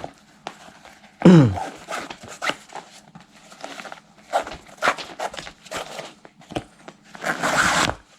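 Laces being pulled out of a sneaker's eyelets: irregular rustling, scraping and light clicks of fabric lace and shoe being handled, with a longer rustling swish near the end. About a second in there is a short, loud falling squeal.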